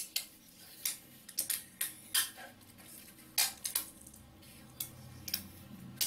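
Clear sellotape being pulled off its roll in short lengths and pressed down, making irregular sharp crackles and ticks.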